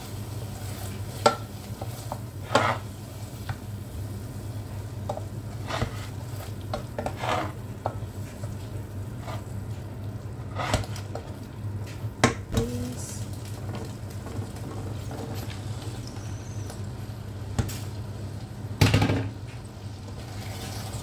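Cooking utensils clinking and knocking against a pot while a bean stew is prepared: scattered sharp knocks over a steady low hum.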